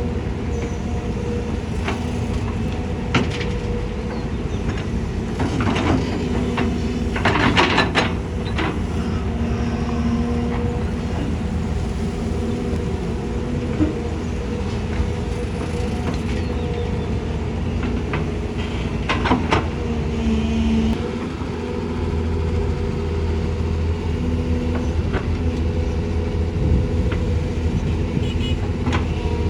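Heavy diesel machinery of an excavator and dump trucks running steadily, with metallic clanks and rattles at several points, the loudest bunched about a third of the way in and again past the middle.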